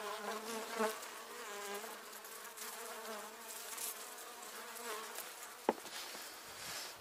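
Honeybee colony humming inside a wooden hive in winter: a faint, steady, slightly wavering drone from the wintering cluster, heard at the hive entrance. A single sharp click about five and a half seconds in.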